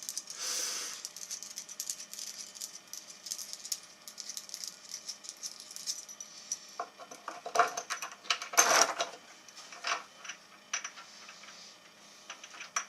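Small metal hardware clicking and rattling by hand as a bolt is fitted through a benchwork leg: scattered sharp clinks with a few short scraping bursts.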